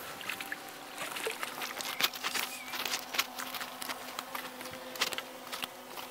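A trout splashing in a landing net as it is lifted out of the lake, with water dripping and pattering, then irregular sharp flaps and clicks as the netted fish is handled on the grass bank, the loudest about two and three seconds in.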